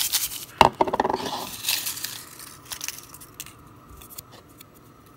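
Paper slips rustling as a hand stirs them in a bowl, with a single sharp knock about half a second in. The rustling dies away after about two seconds, leaving a few faint handling clicks.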